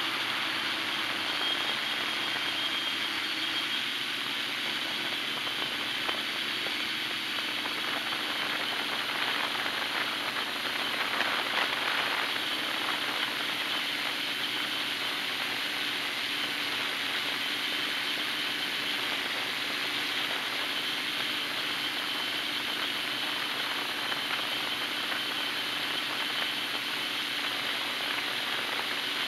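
Hexacopter's electric motors and propellers running steadily in flight, heard from a camera on the frame: an even whine with a thin high tone and a rush of air.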